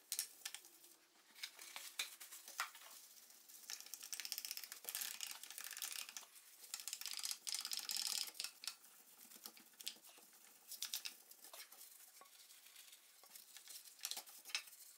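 Cloth and polishing paste rubbed around the inside of a small metal scale pan: a faint, irregular scratchy swishing with small clicks and knocks, busiest around the middle.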